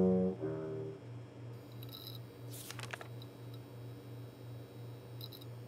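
A tuba note breaks off in the first half second. Then a quiet, low pulsing hum holds, with a few faint clicks and a brief rustle about two and a half seconds in.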